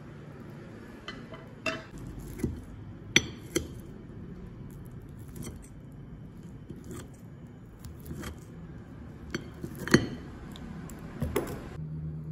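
Metal cutlery cutting into a corn cake and knocking and scraping on a ceramic plate: a run of sharp, irregular clinks, the loudest about three seconds in and again about ten seconds in.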